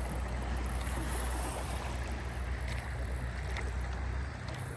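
Outdoor noise aboard a drifting drift boat: a steady low rumble of wind on the microphone over a haze of moving river water, with a few faint knocks. The rumble drops away near the end.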